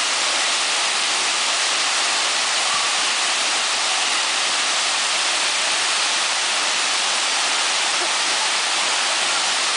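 Waterfall crashing: a loud, steady rush of falling water.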